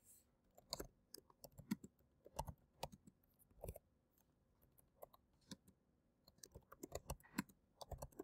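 Faint typing on a computer keyboard: quick runs of key clicks, pausing for about two seconds midway before a second run.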